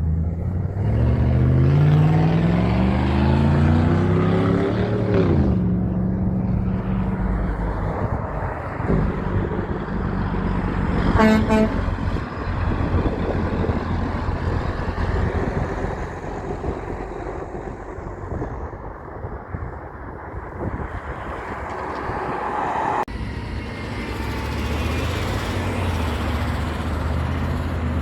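A heavy truck's diesel engine revving up as it pulls away, its pitch rising for about five seconds before dropping at a gear change, followed by engine and traffic noise. About eleven seconds in comes one short horn toot.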